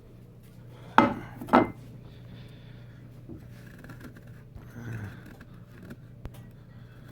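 Two sharp clinks about half a second apart, about a second in, followed by a steady low hum and faint handling noises.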